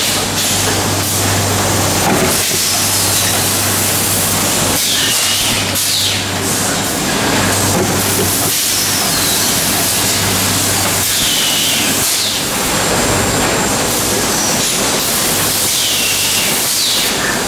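GP-6000 PET stretch blow moulding machine running: a steady loud hiss of compressed air over a constant low hum, with a short surge or whistling rush of air every few seconds as the machine cycles through blowing and exhausting the bottles.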